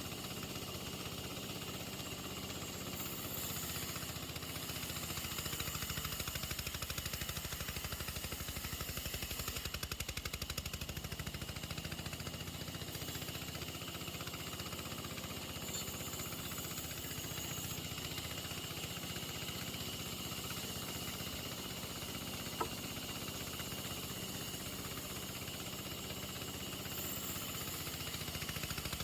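A machine running steadily with a rapid low pulsing, and one sharp click about three quarters of the way through.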